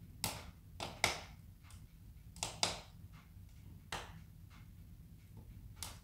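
Split firewood burning in a wood stove, crackling with about seven sharp, irregular pops, the loudest about a second in and two come close together near the middle, over a faint steady low hum.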